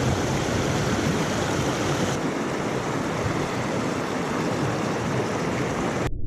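Small mountain creek rushing and splashing close by, a steady noise of running water. Near the end it cuts off suddenly to a dull, muffled low rush.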